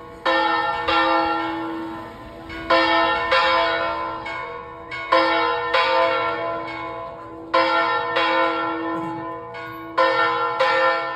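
Church bells swung in an open stone bell gable, ringing out with a strong strike about every two and a half seconds and lighter strokes between, each left to ring on and die away.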